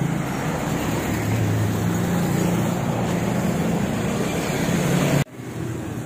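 Road traffic: motor vehicles passing close by with a steady low engine hum over tyre and road noise. A little over five seconds in the sound cuts out abruptly, then comes back quieter.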